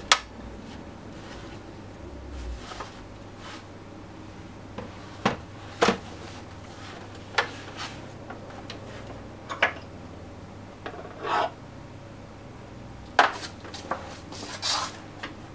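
Xbox One console's plastic casing being handled and pried at: scattered sharp plastic clicks and snaps, the loudest right at the start and near the end, with a few short scraping rubs of plastic in between.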